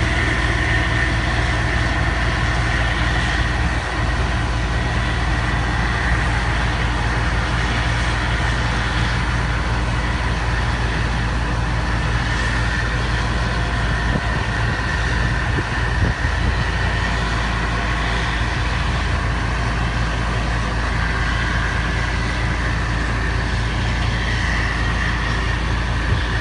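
Steady drone of diesel harvest machinery at work: a combine harvester running while it unloads grain by auger into a grain cart, together with the tractor pulling the cart. A constant high whine sits above the engine sound.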